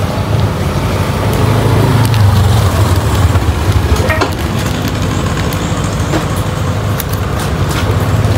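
A steady low engine rumble, like a motor idling, with light crinkling and clicking of banknotes and plastic being handled in the second half.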